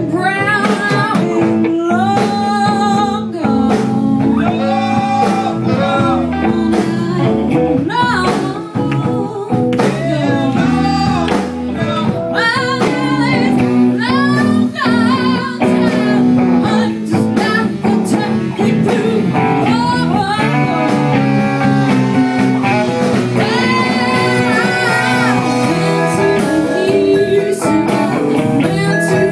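Live blues band playing a song: singing and guitar over a steady band backing, with bending, wavering melody lines.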